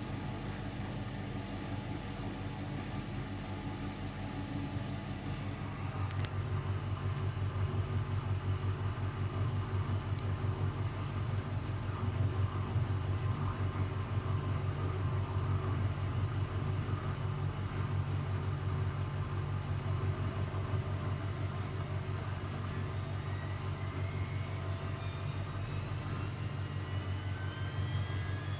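Luxor WM 1042 washing machine in its spin cycle with an unbalanced load. After about six seconds the drum gets louder with a fast, even low pulsing, and from about two-thirds of the way in the motor's whine rises steadily as the spin speeds up.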